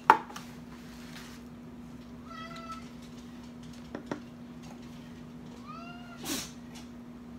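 A cat whining, two short meows about two seconds in and again near six seconds; it is begging because it heard tin cans being opened and takes them for cat food. A sharp metallic knock right at the start and a lighter one about four seconds in, from a spoon against the tin can.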